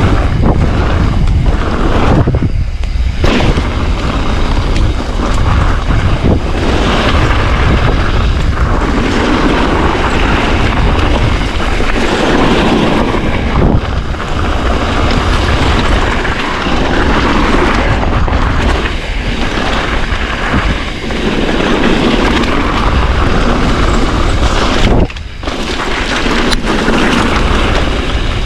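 Mountain bike ridden fast down a gravelled trail: heavy wind buffeting on the microphone over tyre noise on gravel, with brief dips about three seconds and twenty-five seconds in.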